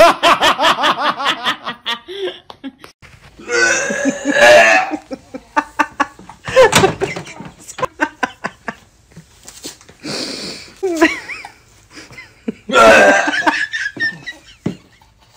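A man laughing hard in a rapid run of 'ha-ha' pulses, followed by several more loud bursts of laughter or burp-like vocal sounds.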